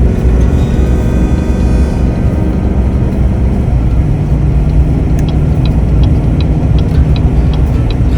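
Steady road rumble inside a moving vehicle's cabin. From about five seconds in, a turn signal clicks at an even pace, a few clicks a second, as the exit is approached.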